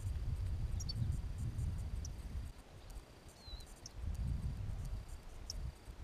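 Wind buffeting the microphone in gusts, easing off in the middle, with small finches giving a few short, high chirping calls.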